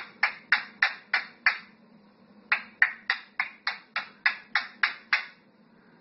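Pet parrot giving rapid runs of short, harsh squawks, about three a second, in two bursts with a pause about two seconds in.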